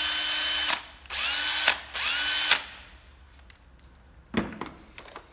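Hitachi 12V cordless drill motor running at full speed with a steady whine, stopping about a second in. It is then triggered twice more in short bursts that rise in pitch as they spin up and cut off abruptly. Afterwards come a few knocks of the drill being laid into its hard plastic carry case.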